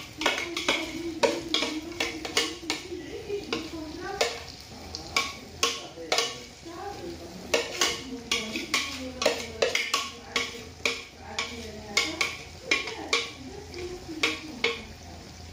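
A utensil scraping and knocking against the containers as marinade is scraped out of a bag and a glass bowl into a clay tajine. There are many sharp clinks and taps, a few a second, and squeaky scraping in the first few seconds.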